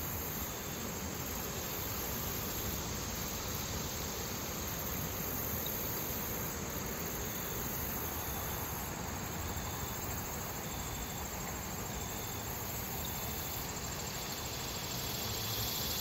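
River water flowing steadily over rocks, a constant rushing hiss, with a high-pitched chorus of insects buzzing over it.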